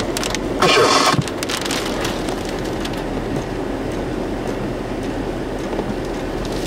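Steady road and engine noise inside a moving car's cabin, with raindrops ticking on the windshield. A brief loud swish about a second in.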